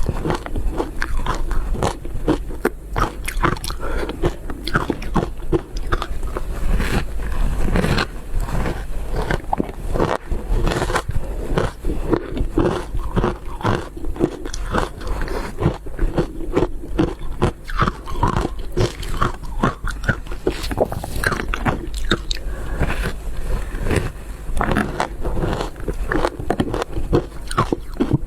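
Ice being bitten and chewed close to the microphone: a dense, irregular run of sharp crunches and cracks, several a second, over a low steady hum.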